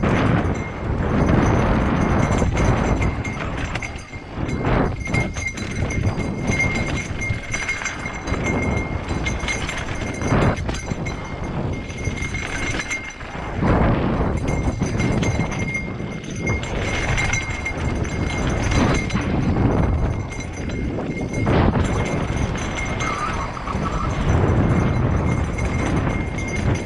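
Mountain bike riding fast down a rocky dirt singletrack: tyres crunching over loose stones and the bike rattling and knocking over the bumps, under a heavy wind rumble on the camera microphone.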